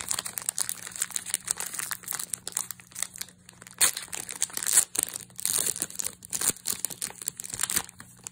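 Glossy plastic wrapper of a Panini Select basketball hanger pack crinkling and tearing as it is ripped open by hand, with dense, irregular crackles that are loudest in the middle stretch.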